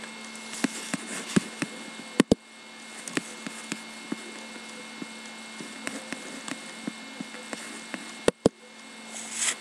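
Scattered small clicks and handling noises over a steady electrical hum, with two sharp double clicks, one about two seconds in and one near the end, and a brief rush of noise just before it ends.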